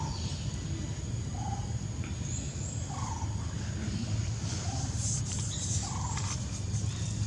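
Short animal calls, one about every second and a half, over a steady low hum, with fainter high-pitched chirps near the middle.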